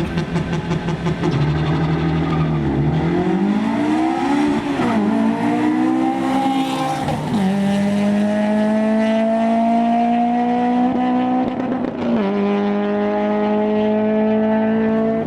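Car engine revving up and down, then held at high revs for several seconds, climbing slowly with one brief dip, as a car does when spinning its tyres in a burnout or donuts.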